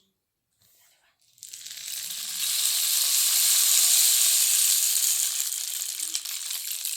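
Toy rainstick tipped over, its beads trickling down inside in a steady rain-like hiss. The hiss starts suddenly about a second and a half in, swells, then slowly eases off near the end.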